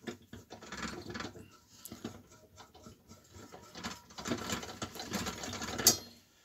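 Screwdriver turning screws out of the rusty top pan of a Salter Model 25 parcel scale: a rapid, uneven rasping and ticking of metal on metal, with one sharp click near the end.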